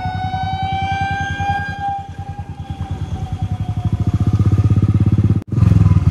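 Motorcycle engine running while riding, with steady rapid firing pulses that grow louder from about four seconds in and drop out for an instant near the end. Over it, a long horn-like tone slowly falls in pitch and fades away by about four seconds in.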